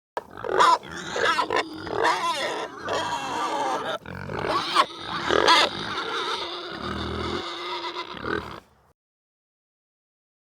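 Pigs grunting and squealing in a run of short, broken calls that stop about nine seconds in.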